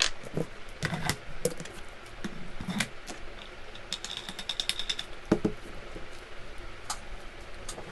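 Scattered clicks and knocks of adjustable dumbbell parts being handled and fitted together with the connector to make a barbell, with a quick rattle about four seconds in.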